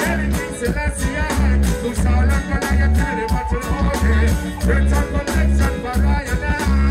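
Live reggae band played through a big outdoor PA, with heavy bass notes in a steady repeating pattern, drums, and a voice singing over it.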